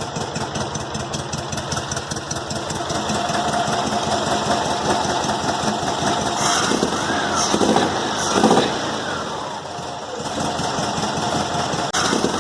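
VW Fusca (Beetle) air-cooled flat-four engine running, with a few rises and falls in engine speed in the second half. It has a strange roar, as if it had no exhaust, the sign of loose cylinder-head fasteners.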